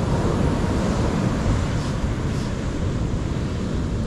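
Steady wind rumbling on the microphone, with surf washing on the beach.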